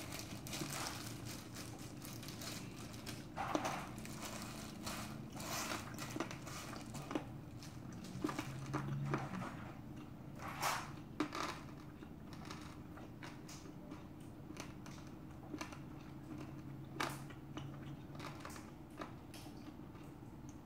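Close-miked chewing of a rice ball with crunchy pork cartilage (odolppyeo), with irregular crunches and clicks as the cartilage is bitten through, and some plastic-glove crinkling. A faint steady hum lies underneath.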